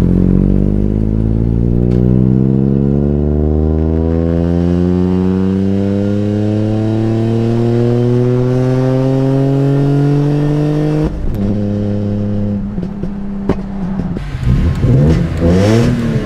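BMW E46 M3's S54 inline-six pulling under slow acceleration, its pitch rising gradually for about eleven seconds and then dropping suddenly as the revs fall. The engine note sounds wrong and it struggles to accelerate, which the driver takes for missing cylinders; the fault goes away once the mass airflow sensor, left spliced into the air temp sensor under a MAF-delete tune, is unplugged.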